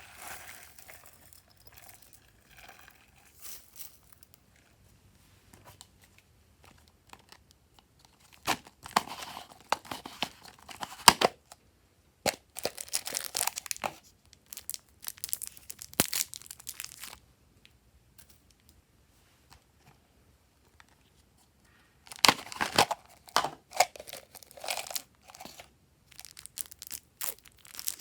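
Glossy slime being stretched, folded and squished by hand, giving bursts of crackling and sharp popping clicks. The bursts are separated by quiet pauses.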